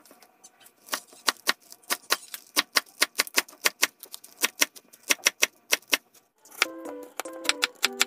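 Kitchen knife chopping garlic chives on a wooden cutting board: quick, sharp knocks about four a second. Light plucked-string music comes in about two-thirds of the way through.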